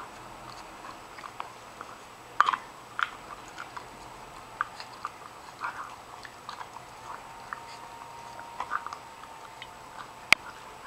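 An Akita dog gnawing on a small, worn-down hoof chew: irregular crunches and clicks of teeth on hard hoof. The loudest is a sharp crack near the end.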